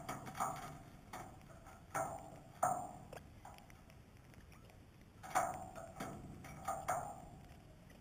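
Irregular sharp taps and knocks, each ringing briefly, as crimson rosellas and a king parrot peck seed and step about on a perforated metal table around a terracotta seed dish. A few come in the first two or three seconds, then a quieter spell, then another cluster in the second half.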